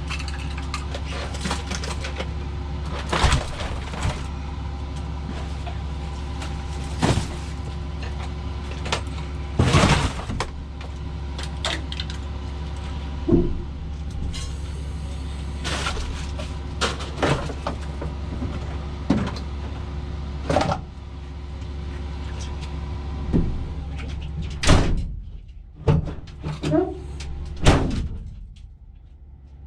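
A steady engine hum under irregular clanks and knocks, every second or two; the hum stops about 25 seconds in, followed by a few louder knocks.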